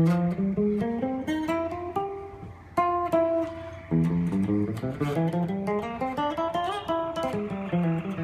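Wing bass prototype played solo: fingers plucking quick melodic runs of single notes, mostly climbing in pitch, with new phrases starting about three and four seconds in.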